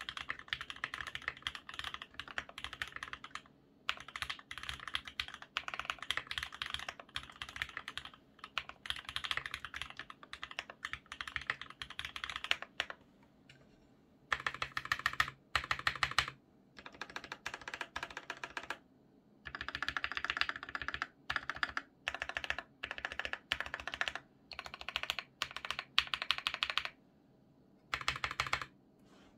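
Typing on a Linworks mechanical keyboard with a translucent polycarbonate case and lubed Everglide Red V2 linear switches: fast, even keystrokes in bursts of a few seconds with short pauses between them. There is a quicker run of strokes about halfway through and again near the end.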